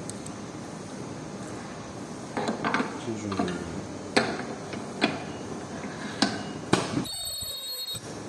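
Ultrasonic welding machine at work on velcro strap: a run of sharp clicks and knocks as parts are set in place and the head comes down, then a steady high-pitched whine for about a second as the weld is made.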